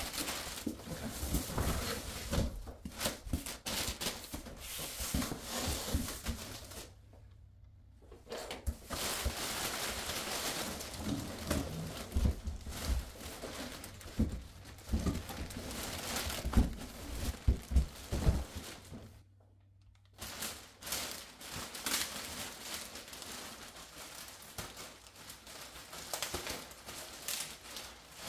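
Plastic packaging bag crinkling and rustling as it is handled and pulled, mixed with cardboard scraping and frequent light thumps and knocks, with two short quiet breaks.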